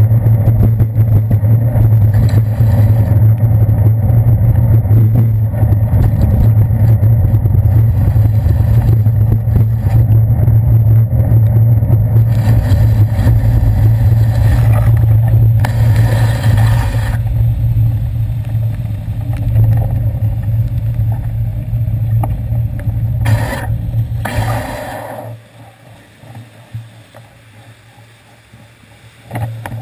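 Traffic and riding noise on wet city streets, picked up by a bicycle's handlebar-mounted camera: a loud steady low drone with a hiss of noise over it, and two brief hissing bursts about halfway and a little before the end. It drops away sharply about four-fifths of the way through.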